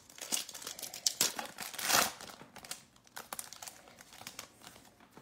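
Foil wrapper of a Mosaic football card pack crinkling and tearing as it is opened, loudest about two seconds in, then fainter rustling as the cards are slid out of the pack.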